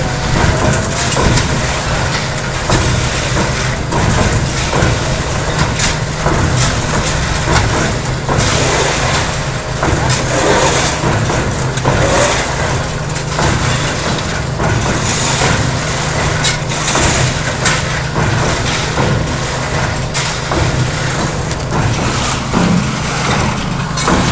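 DIY concrete mixer running, its motor giving a steady low drone while concrete and gravel tumble and knock in the drum.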